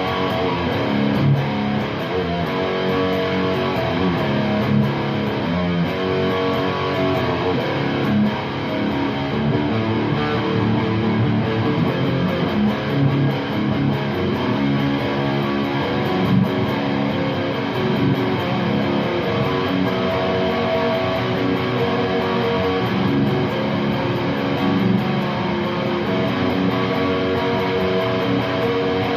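Electric guitar played through an Orange Super Crush 100 solid-state amplifier on its distorted dirty channel. It plays continuous sustained chords and notes without a break.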